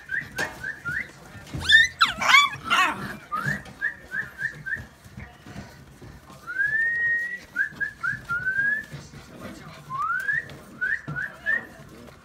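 Young Scottish terrier puppies whining: many short, high rising squeaks, with a louder swooping yelp about two seconds in and a few longer drawn-out whines later.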